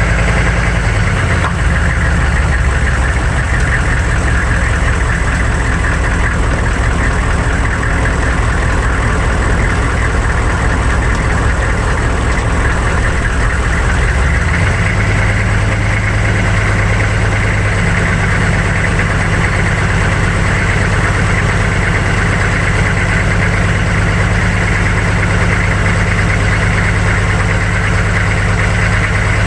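The 6.5-litre turbo-diesel V8 of a 1999 GMC 3500 pickup running under way, heard from beneath the truck with steady road and wind noise. The engine note steps up in pitch about halfway through.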